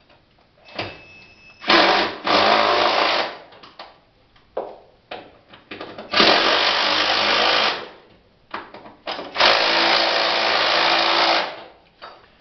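Impact wrench hammering as it drives bolts into the wooden rim board. It runs in three main spells of about one and a half to two seconds each, with short bursts in between. The bolts are only snugged down, not fully tightened.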